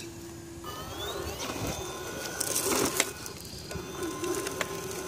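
Radio-controlled rock crawler's TenShock 906 six-pole unsensored brushless motor and drivetrain whining as the truck climbs a boulder, the pitch wavering and rising with the throttle. A sharp knock about three seconds in.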